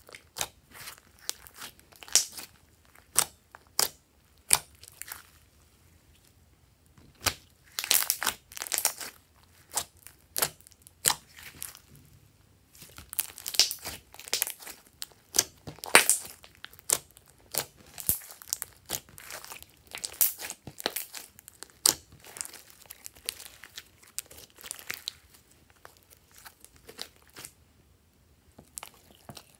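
Hands squeezing and kneading glossy slime, giving an irregular run of sharp, wet pops and crackles, sometimes in quick clusters, with a short pause partway through.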